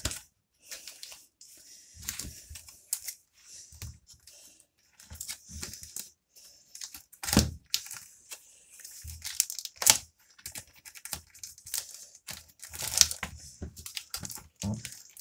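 Clear plastic comic-book bags rustling and crinkling in irregular bursts as a stack of bagged comics is handled and leafed through, with a few soft bumps of the comics against the table.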